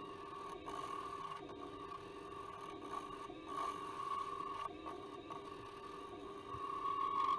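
Wood lathe running as a gouge cuts a spinning yew bowl blank, played back at four times speed: a steady high whine under a scraping hiss, with a few brief dropouts.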